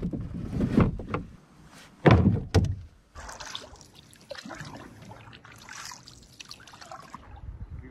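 Dead branches knocking and thudding against a canoe's hull as they are loaded in. From about three seconds in, a quieter trickling and lapping of water around the canoe.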